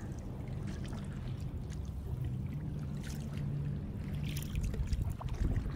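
Water trickling and lapping around a kayak on calm water, with a few brief drips and splashes about three and four and a half seconds in, over a low steady rumble.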